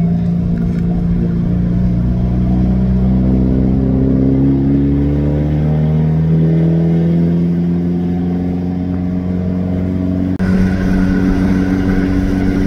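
A Hyundai N car's engine and exhaust droning while driving, its pitch climbing slowly and then easing back. About ten seconds in, the drone changes abruptly to a slightly different steady note.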